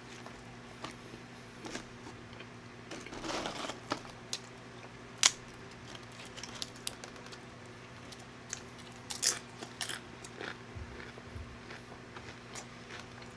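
Close-up eating sounds: a person biting and chewing tortilla chips, with crunches and scattered mouth clicks. The sharpest click comes about five seconds in. A faint steady low hum runs underneath.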